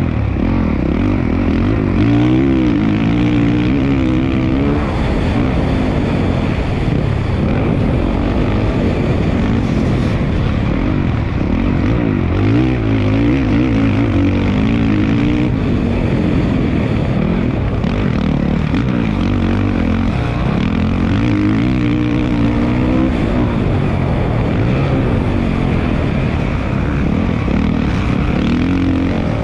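Motocross bike engine revving hard and backing off as it is ridden around the track, its pitch climbing and dropping every few seconds, over a constant noisy rush.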